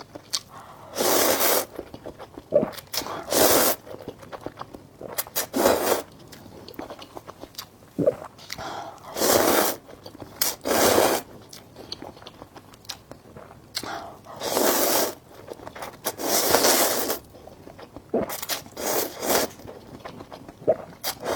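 Close-miked eating of instant noodles: about eight loud slurps of half a second to a second each, spread through the stretch, with quieter chewing and mouth clicks in between.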